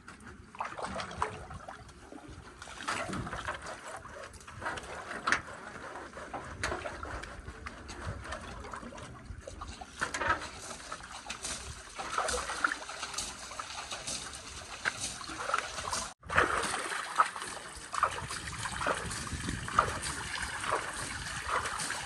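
Water being splashed and thrown by hand against a backhoe's front grille and bodywork, with many short splashes over steady trickling and dripping.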